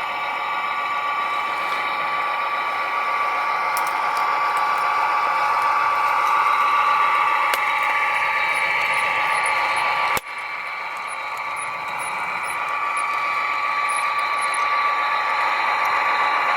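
Electric motors and gearboxes of radio-controlled construction machine models running, a steady high whine. It cuts off for an instant about ten seconds in, then picks up again.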